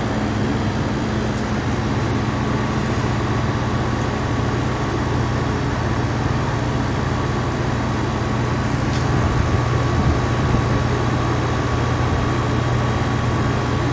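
Outdoor unit of a 1.5-ton Goodman heat pump running in cool mode, its compressor and condenser fan making a steady low hum. A faint steady high whine joins about two seconds in.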